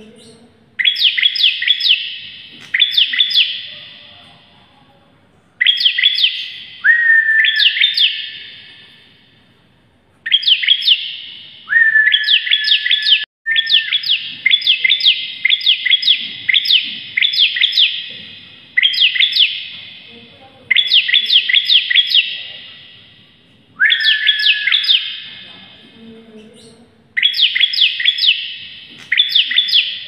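Bar-winged prinia (ciblek) singing loudly: bursts of about a second of rapid, sharp chipping notes, repeated every second or two, some opening with a short steady whistle. In the middle the bursts run together into an almost unbroken string.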